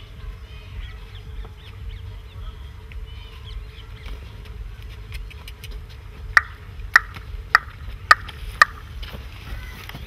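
Field ambience with a low wind rumble on the microphone and birds chirping. About six seconds in, a run of five sharp clicks about half a second apart.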